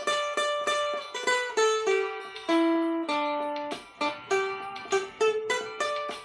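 Cavaquinho playing a hymn melody, a line of single plucked notes mixed with quick repeated strokes, each note starting sharply and fading.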